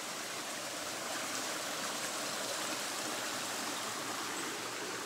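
Small rocky mountain brook running over stones: a steady rush of flowing water.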